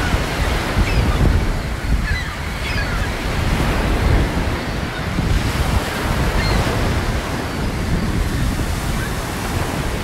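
Ocean surf breaking and washing in, a steady rushing wash, with wind buffeting the microphone.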